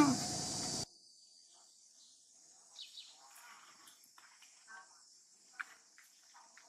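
Insects droning steadily at a high pitch, with faint scattered clicks and a few short squeaks. At the very start, a loud noisy stretch carries a short falling squeal and cuts off suddenly under a second in.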